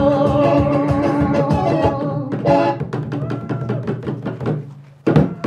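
Korean janggu hourglass drum played fast with a thin stick and the hand, over music with held notes that thins out about two seconds in. Sparser strokes follow, with one loud stroke near the end.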